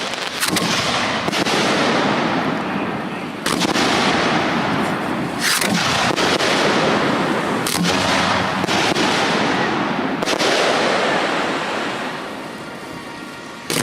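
Display fireworks going off in a dense barrage: repeated sharp booms of shell bursts over a continuous crackling rumble, easing off slightly near the end before another loud burst.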